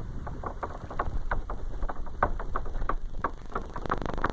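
A kayak under way on a 55-lb-thrust electric trolling motor, running on its fifth speed: a fast, irregular run of ticks and slaps over a steady low rumble, thickening into a denser buzz near the end.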